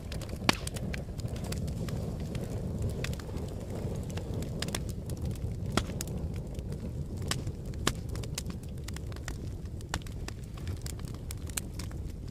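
Wood fire burning in a fireplace: a steady low rumble of flames with frequent sharp crackles and a few louder pops of burning wood.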